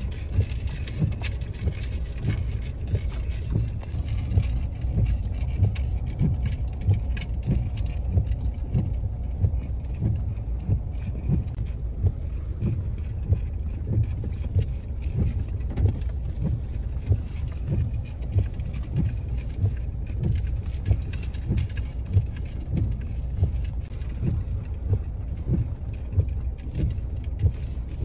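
Vehicle driving on a rough road: a steady low rumble with frequent knocks and rattles.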